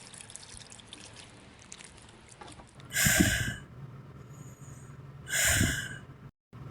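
Two loud, breathy snorts, each about half a second long and some two and a half seconds apart, over faint hiss.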